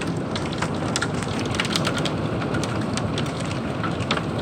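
Heavy rain and dime-size hail pelting the house: a steady downpour with many scattered sharp ticks of hailstones striking.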